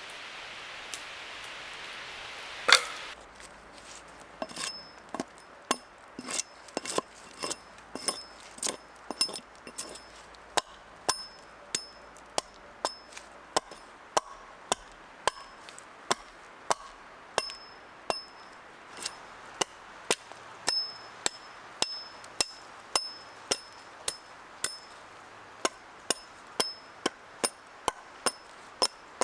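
Repeated strikes of a hand tool in a steady rhythm of about two a second, many with a short metallic ring, after one single loud blow about three seconds in.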